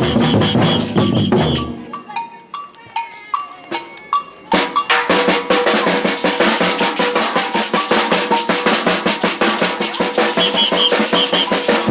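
Batucada samba percussion band drumming: surdos, snares and bells play a dense groove that drops to a break of a few separate strokes about two seconds in, then the full group comes back in together about four and a half seconds in. Short high whistle blasts sound near the start and again near the end.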